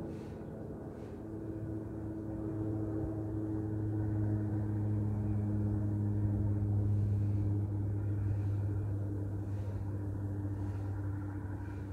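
A distant engine's steady low drone, swelling toward the middle and easing off near the end.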